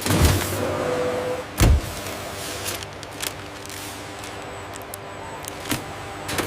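Machinery running with a steady hum and occasional clunks and knocks; the loudest clunk comes about a second and a half in.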